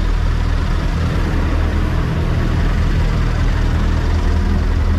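Scania truck's diesel engine idling steadily with an even low drone.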